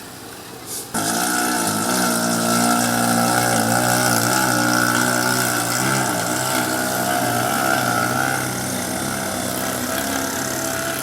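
An engine running close by, cutting in suddenly about a second in after a brief click. Its pitch wavers slightly, and it eases off a little near the end.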